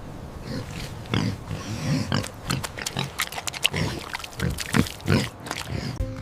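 Pig grunting repeatedly in a string of short, irregular calls.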